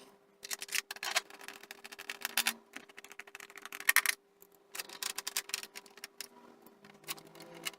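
Irregular clicks, taps and clatter of the BBC Master 128's case and parts being handled as the computer is put back together.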